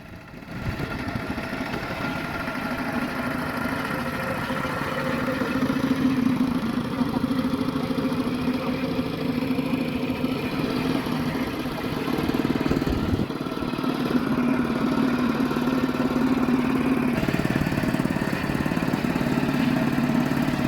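Kubota DC-70 rice combine harvester's diesel engine running steadily under load while harvesting, its note swelling and easing slightly.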